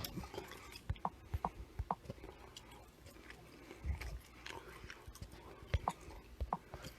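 Quiet chewing, with scattered small clicks and a soft low thump about four seconds in.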